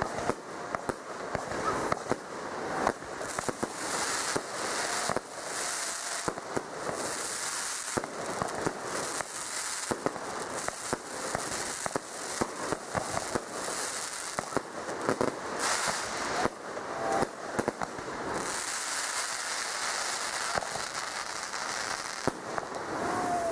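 Fireworks display: a rapid, irregular string of sharp bangs from bursting shells over a continuous crackling hiss.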